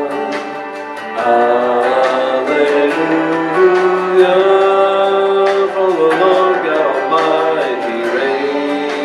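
A man singing a slow worship song into a microphone over instrumental accompaniment, holding long notes.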